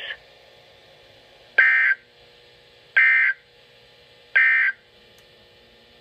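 Three short bursts of warbling digital data tone from a Midland NOAA weather alert radio's speaker, about a third of a second each and spaced about 1.4 s apart. These are the EAS end-of-message burst that closes the severe thunderstorm warning broadcast.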